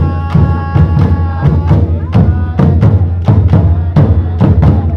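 Street drum band of bass drums and snare drums playing a steady, driving beat of about three strikes a second. A held pitched note sounds over the drums for about the first two seconds.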